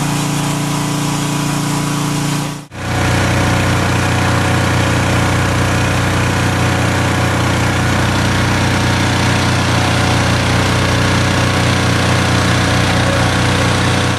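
Portable generator engine running steadily. About two and a half seconds in, an edit switches to a deeper, lower engine tone, which runs on until it cuts off suddenly at the end.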